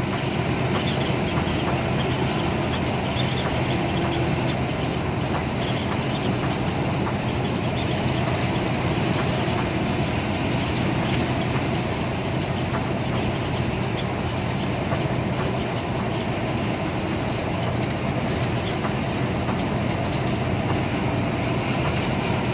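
Cabin noise inside a coach cruising at highway speed: a steady engine drone with tyre and road noise, unchanging throughout.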